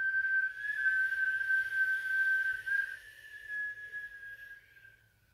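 A person whistling one long, steady note on the breath through pursed lips, a whistled breath of a Sitali pranayama breathing exercise, with breath hiss around the tone. The pitch wavers slightly partway through, and the whistle fades out near the end.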